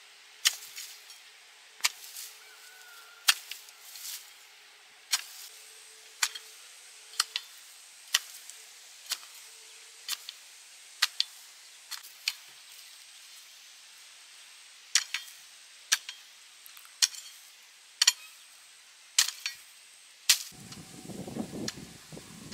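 Chopping: sharp strikes, about one a second and sometimes in pairs, with a short gap past the middle. Near the end a louder, rough rustling noise starts.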